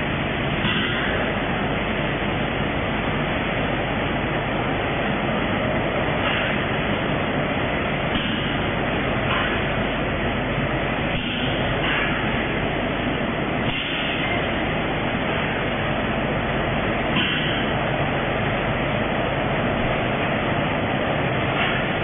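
Automatic vertical packing machines and their conveyor line running steadily: a dense, continuous mechanical clatter and hum, with short hiss-like sounds every few seconds.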